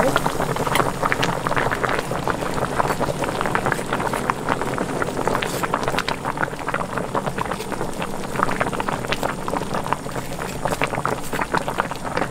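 Spicy red braising sauce of a mackerel and radish braise boiling in a pot: a continuous dense bubbling with many small pops.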